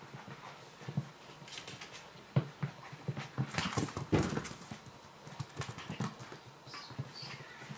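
Border Terrier puppies and their mother moving about, claws clicking and scrabbling on a tile floor with scuffling on a rug. A cluster of louder knocks and scuffles comes about three and a half to four seconds in.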